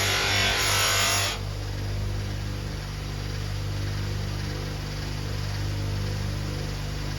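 Electric bench polishing motor running with a steady hum, with a loud hiss of a buffing wheel working against metal that stops about a second in, leaving the motor running free.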